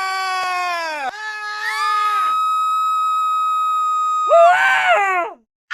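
Edited scream sound effects. A long, held, high-pitched scream sags in pitch about a second in. A steady electronic beep tone follows for about two seconds, then a short wavering scream cuts off abruptly near the end.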